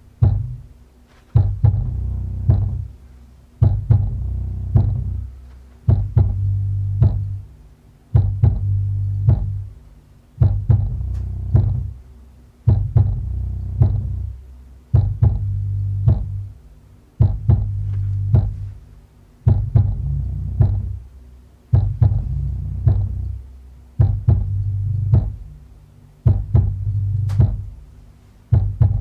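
Crowson tactile bass actuators shaking a theater recliner, playing a song's thumpy bass line as a low hum through the chair with no vocals or highs. Each phrase starts with a sharp knock and dies away, about every two seconds.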